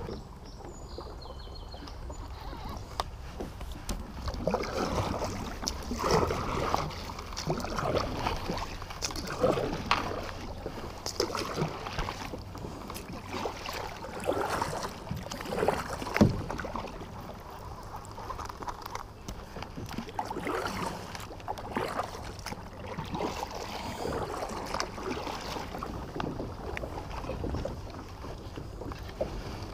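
Kayak paddle dipping and pulling through river water, irregular splashing strokes every second or two, over a steady low rumble.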